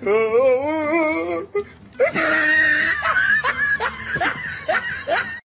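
A person laughing hard: a long wavering laugh, then breathy, squealing laughter that cuts off suddenly at the end.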